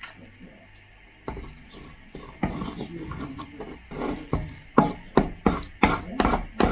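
Wooden spatula scraping and knocking against a nonstick frying pan while eggs are stirred and scrambled, starting about a second in and turning into quick strokes about three a second in the second half.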